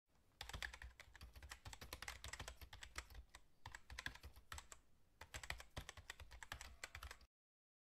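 Computer keyboard typing sound effect: a fast, steady run of key clicks with a couple of short lulls, cutting off suddenly near the end.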